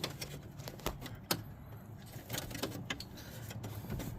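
Irregular light clicks and rattles as parts at a steering column are handled and moved, with a few sharper clicks about a second in.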